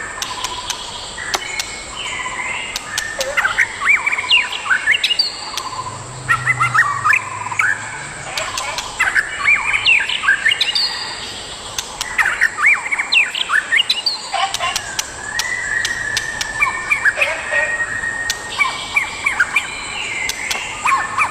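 White-rumped shama singing: a long, varied song of quick whistled notes and chattering phrases, broken by short pauses, with one drawn-out steady whistle past the middle.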